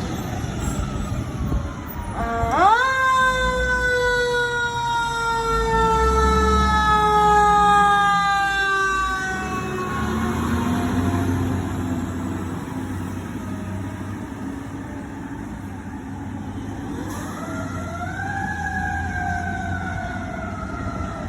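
Fire apparatus responding: a siren winds up sharply and then falls slowly in pitch over several seconds, twice, over the low rumble of heavy truck engines.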